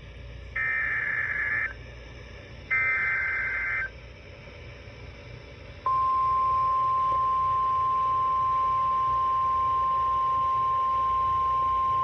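Emergency Alert System SAME header: two one-second bursts of buzzy data tones about a second apart, the last of a set of three. About six seconds in, a single steady high alert tone starts and holds. This is the NOAA Weather Radio warning alarm that opens a new severe thunderstorm warning.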